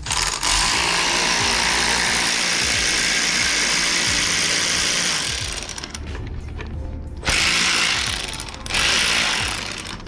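Handheld power tool running in three runs, one of about five seconds and then two short ones near the end, loosening the 12 mm bolts that hold a fuel rail.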